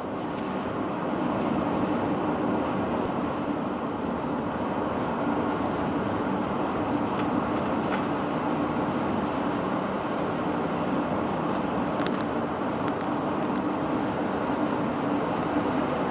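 A vehicle running steadily: a continuous rumble with a steady low hum and a few faint clicks.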